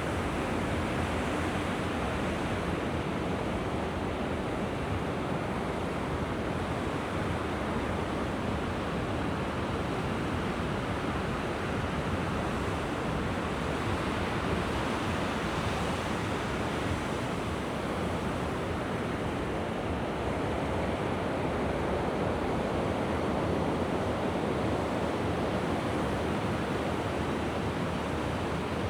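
Sea waves washing ashore in a steady, even surf, with no single break standing out.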